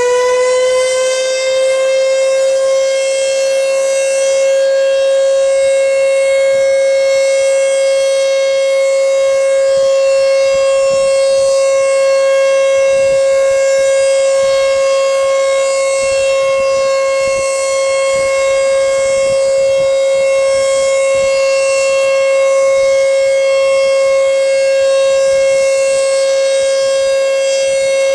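American Signal T-121 tornado warning siren sounding a steady alert tone, holding one loud pitch with many overtones after finishing its wind-up just at the start.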